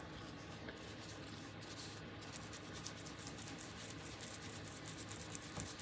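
Faint handling noise: light scratches and soft ticks of hands working a sheet of small journal embellishments, over a steady background hiss.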